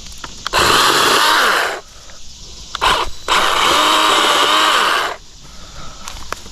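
Craftsman V20 12-inch battery chainsaw's electric motor and chain running in bursts while cutting brush: a run of about a second, a short blip, then a run of about two seconds, with pitch wavering under load. Quieter rustling and clicks fill the gaps between runs.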